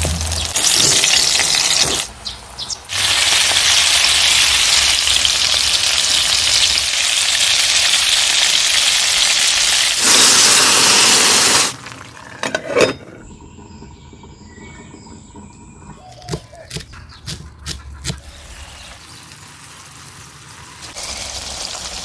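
Vegetable slices frying in hot oil in a pan: a loud, steady sizzle for the first half. About halfway through it drops to a quieter sizzle broken by a few sharp clicks and knocks of a lid or utensil against the pan.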